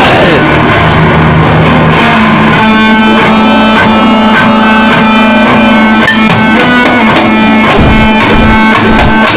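Harsh noise music at a very loud, unvarying level: saturated distorted noise that sweeps down in pitch at the start, settles into a low drone, then from about three seconds in shifts to a higher drone with shrill tones above it, broken up by rapid, irregular clicks and crackles.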